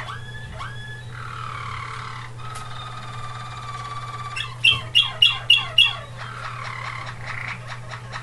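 Waterslager (Malinois) canary singing a varied song: rising, gliding notes and held rolling tones, then five loud falling notes at about four a second past the middle, followed by a fast trill.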